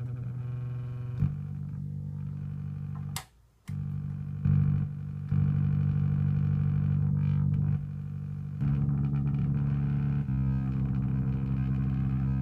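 Moog Werkstatt-01 analog synthesizer played from a QuNexus key controller: low held notes that step to a new pitch every second or two, with a short break a little over three seconds in.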